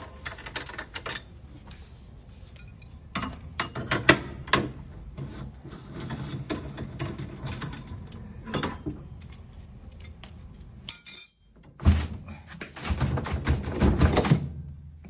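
Metal tools and parts clinking and tapping in irregular clicks, with a louder run of knocks and rattling near the end.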